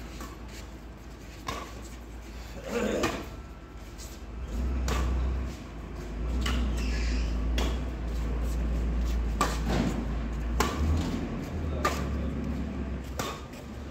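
Badminton rally: rackets striking a shuttlecock in a string of sharp hits about every one to two seconds, over a steady low rumble that grows louder about four and a half seconds in.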